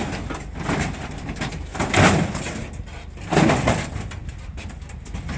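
Metal barbecue being hauled and loaded by hand, giving three rough clanking, scraping bursts about a second and a half apart over a steady low hum.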